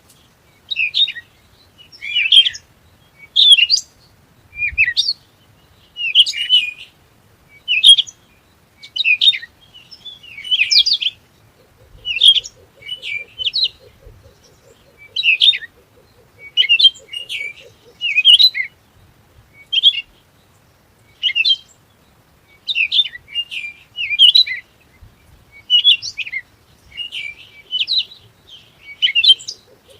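Small songbirds chirping in short, high, bright phrases that repeat about once a second, with a faint low buzzing trill through the middle.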